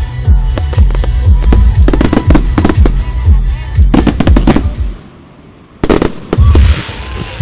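Fireworks display: a rapid barrage of booming shell bursts for about five seconds, a brief pause, then more loud bangs followed by a crackling hiss.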